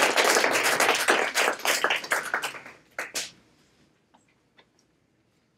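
Audience applauding in a small room; the clapping thins out and dies away about three seconds in, leaving near quiet with a few faint taps.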